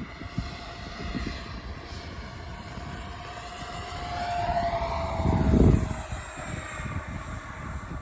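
Twin 80 mm electric ducted fans of an RC jet whining in flight, swelling as the jet passes close about halfway through and easing off again. Wind buffets the microphone throughout, loudest in a rush about five and a half seconds in.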